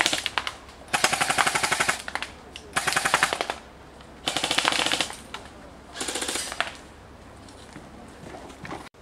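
Airsoft rifles firing full-auto: about five rapid bursts of quick clicks, each under a second long and roughly a second apart, the last one fainter.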